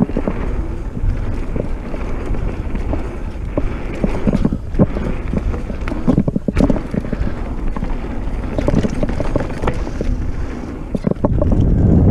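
Mountain bike descending a dirt trail at speed: a steady rush of wind on the microphone over tyre noise, with frequent knocks and rattles as the bike hits bumps. The wind grows louder near the end.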